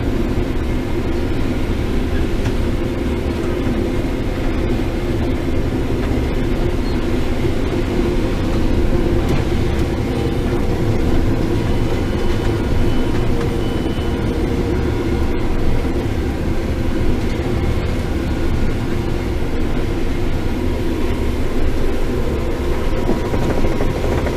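Case IH 7130 combine running steadily while harvesting corn: a constant engine and machinery drone with steady hums, holding at one level throughout.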